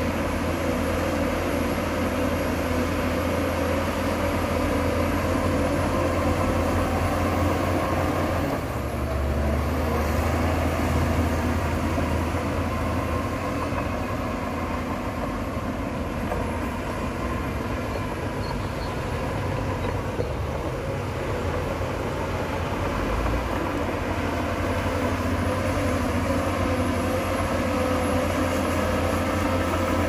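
Shantui crawler bulldozer's diesel engine running steadily under load as it pushes dirt. The engine note shifts about nine seconds in.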